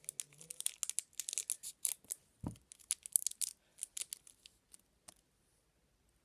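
Plastic wrapper of a Toxic Waste sour hard candy crinkling and tearing as it is unwrapped by hand, in quick dense crackles that thin out to a few clicks after about three and a half seconds. A dull bump sounds about two and a half seconds in.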